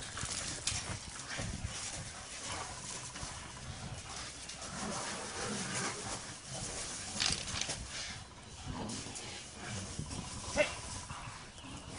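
Dogs fighting: an irregular, continuous scuffle of dog noise with a few sharp, louder outbursts, the sharpest about ten seconds in.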